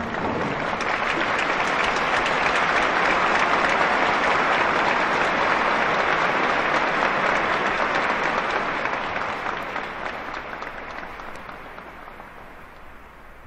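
A large crowd applauding, a dense steady clatter of many hands that fades away over the last several seconds.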